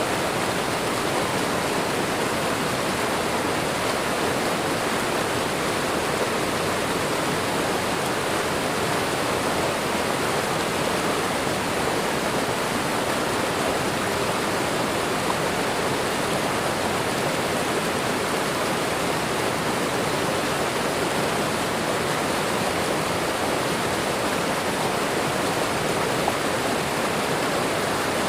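Waterfall and running water: a steady, unbroken rushing hiss.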